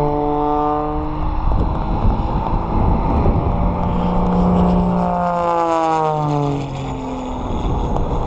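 Aerobatic propeller biplane flying past low with its engine droning; its pitch slides down as it goes by, from about three and a half to seven seconds in. Wind buffets the microphone throughout.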